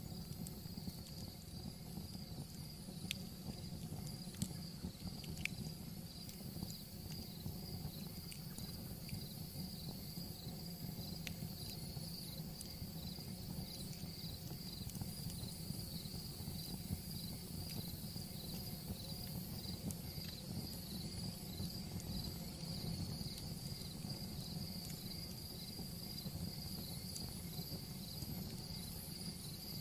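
Wood fire crackling in a fireplace, with scattered sharp pops over a low steady rumble. Crickets chirp steadily throughout in a fast, even pulse.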